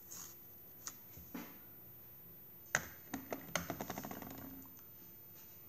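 Light clicks and taps of chips and metal bowls being handled on a table: a few separate taps, a sharper one near the middle, then a quick run of light ticks that dies away.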